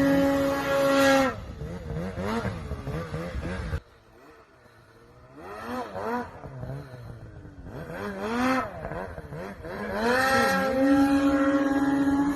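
Snowmobile engines revving hard. A steady high-pitched run cuts off about a second in; after a brief lull come several short revs that rise and fall in pitch, then a long steady high rev near the end.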